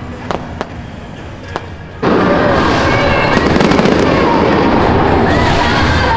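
Fireworks display: a few sharp isolated pops, then about two seconds in a loud, dense, continuous barrage of bursts sets in suddenly, with a few gliding whistles over it.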